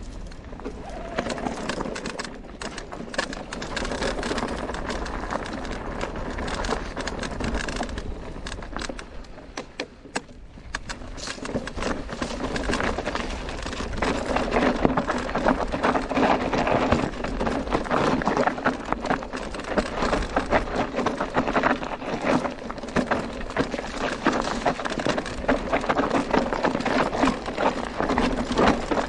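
Electric mountain bike (Merida eONE-Sixty) rattling down a dirt singletrack: tyres running over dirt and loose stones, with the chain and frame clattering over the bumps. It dips quieter around ten seconds in, then grows louder and busier from about halfway on.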